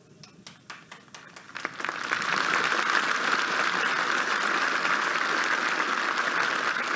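Audience applause: a few scattered claps at first, swelling after about two seconds into steady, dense clapping.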